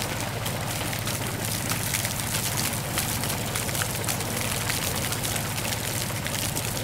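A thin stream of water splashing steadily onto sand, a fine crackling patter, over the steady hum of a small electric water pump.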